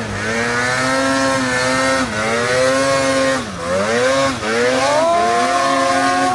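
Polaris snowmobile engine running at high revs under load in deep snow, its pitch dipping briefly twice around the middle and then climbing higher toward the end.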